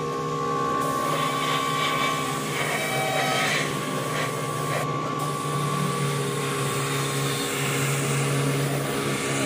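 Gravity-feed spray gun spraying black toner: a steady hiss of air and paint mist over the constant hum of the air machine that feeds it.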